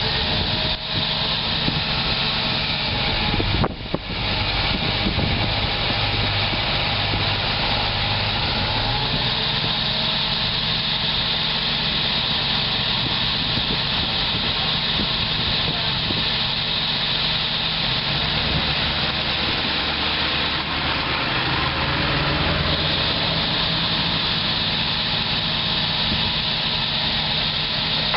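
1998 GMC C6500 truck's engine idling steadily, with a brief break in the sound about four seconds in.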